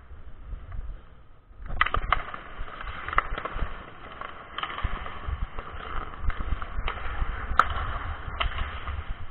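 Ice hockey play: skate blades scraping and carving the ice, picking up sharply about two seconds in, with several sharp clacks of sticks and puck. The loudest clack comes about three quarters of the way through.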